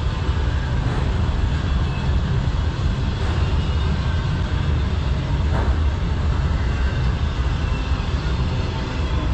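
Freight train of autorack cars rolling past close by: a steady, loud rumble of steel wheels on the rails.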